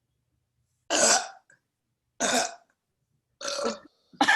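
A woman burping three times in a row, about a second apart: a short three-part burp.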